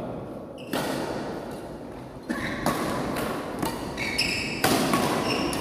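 Badminton rally: sharp racket strikes on the shuttlecock, four or so spread over a few seconds, with a burst of shoe squeaks on the court floor about four seconds in.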